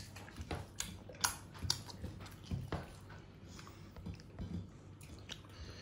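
Close-up chewing and eating sounds of a person eating a meal of rice and curry, with many irregular small wet clicks and smacks.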